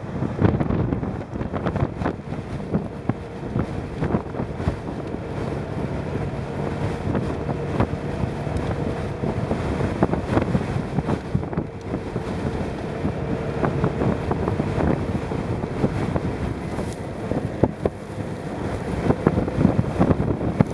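Strong gusting wind buffeting the microphone of a moving motorcycle, with the bike's engine running steadily underneath.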